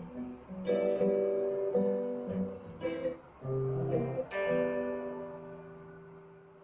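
Guitar playing a blues jam, several strummed chords, then a last chord a little over four seconds in that rings out and slowly fades.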